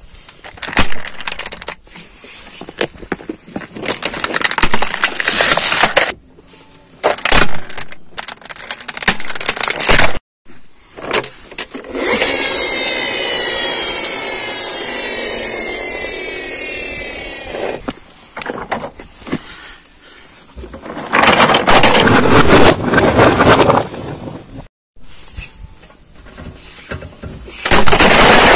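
Hollow plastic toys cracking and crunching under a car tyre rolling over gravel, in several separate crushes with abrupt cuts between them: a toy blaster, a small toy car and a toy bus. In the middle, a steadier rushing noise runs for about six seconds.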